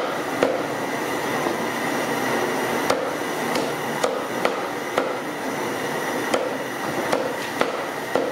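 Busy commercial kitchen background: a steady noisy din with irregular sharp knocks, about a dozen of them, and a faint steady high tone.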